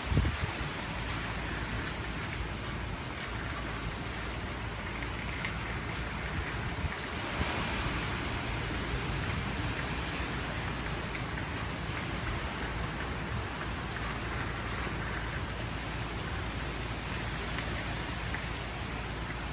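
Hurricane rain and wind: a steady heavy hiss of rain that swells briefly about seven or eight seconds in.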